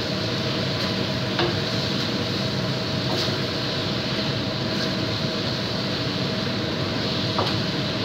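A wooden spatula stirring thick chicken curry in a nonstick wok, with a few light taps and scrapes against the pan. Under it runs a steady hum and hiss with a faint even tone.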